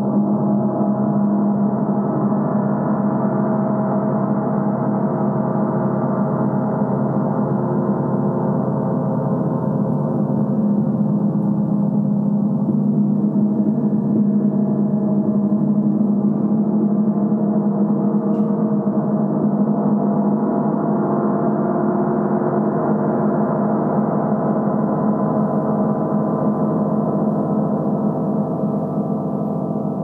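Large 60-inch symphonic gong sounding in a continuous, sustained wash of many overlapping tones, strongest low in pitch, with no separate strikes standing out and the sound swelling and easing slowly.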